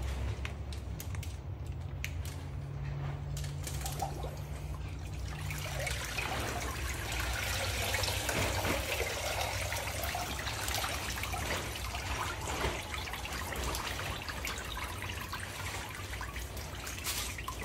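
Water splashing and pouring off a cattle skull as it is lifted out of a hydrographics dip tank, easing to a trickle and drips falling back into the tank. A low steady hum is heard in the first few seconds, before the lift.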